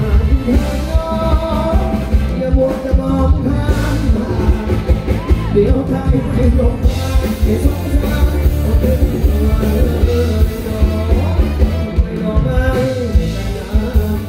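Live band playing loud through a PA system: a man singing over electric guitars, keyboard and drums keeping a steady beat.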